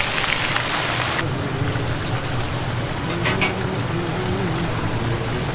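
Hot oil sizzling and crackling in a deep fryer as battered pieces are dropped in. The sizzle cuts off sharply about a second in, leaving a steady low background hum with a short click near the middle.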